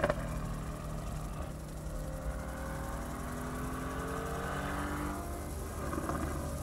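Mercedes-AMG GT's twin-turbo V8 accelerating, its engine note rising steadily in pitch for a few seconds over a low drone.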